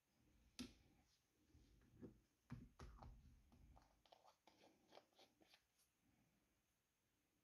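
Faint handling noises of a small paint jar and brush on a workbench: a sharp click, then a few light knocks, then a run of small ticks.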